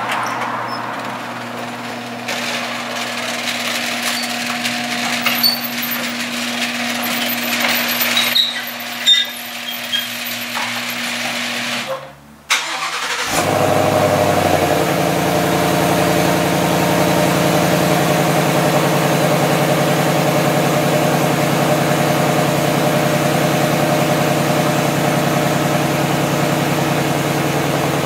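A garage door opener runs with a steady hum and a few clunks for about twelve seconds. After a short break, a 2015 Ford Mustang GT's 5.0-litre V8 starts from cold and settles into a steady idle through its stock exhaust.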